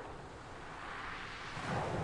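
Ocean surf: the wash of a wave ebbing away, then the next wave building and breaking near the end.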